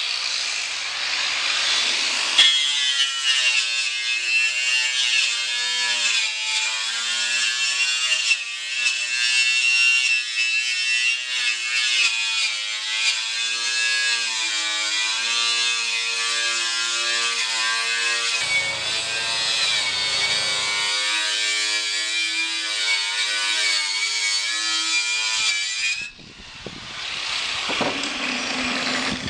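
Angle grinder with a wire wheel scouring paint and rust off a steel door-shell flange. It runs steadily, its whine wavering in pitch as the wheel is pressed into the metal. It drops out briefly near the end.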